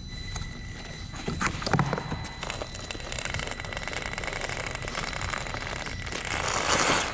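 Traxxas TRX-4M Bronco RC crawler's small electric motor and gears whining steadily as it climbs, with knocks and clatters of its tyres over loose broken wood. A louder scraping rustle of the debris comes near the end.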